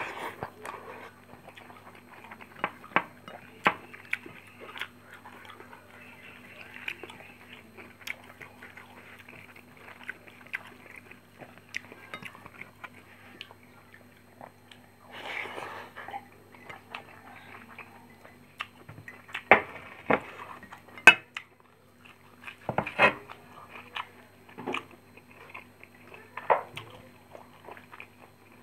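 A person eating rice and fried fish by hand: chewing and mouth sounds with scattered sharp clicks and knocks of fingers and food against a ceramic plate and dishes, the loudest ones about two thirds of the way through. A faint steady low hum runs underneath.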